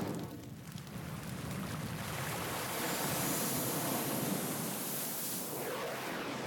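Designed cinema-logo sound effect: a steady rushing, wind-like noise that builds about a second in and holds, with a sweeping whoosh near the end.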